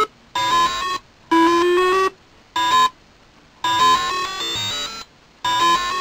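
Electronic synthesizer tones in about five short bursts, each a quick run of notes stepping slightly upward in pitch, cut off abruptly by silences of about half a second.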